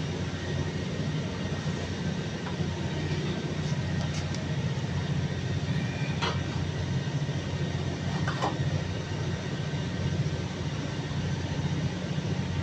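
Steady low machine hum, like an engine or large motor running, with a few light metallic clicks from hand tools on the engine block.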